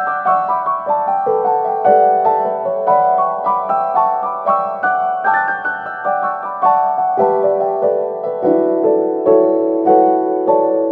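Background piano music: a steady melody of evenly struck notes.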